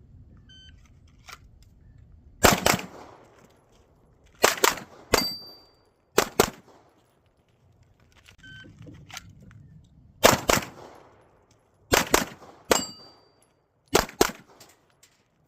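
Two strings of handgun fire, each started by a shot timer's beep and followed by quick shots, mostly in close pairs. Twice a hit leaves a steel target ringing.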